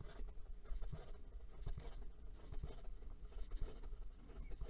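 Sheaffer Taranis fountain pen nib running quickly over notebook paper, writing a signature again and again in loops: a faint, irregular patter of pen strokes.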